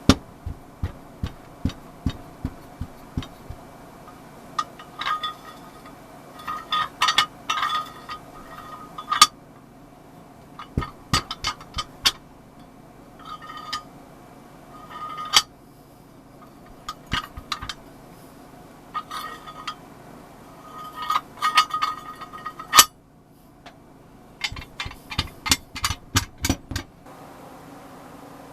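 Cast iron nutcracker parts clinking and knocking as they are handled: irregular metal clicks, some in quick rattling runs with a brief ring, over a faint steady hum.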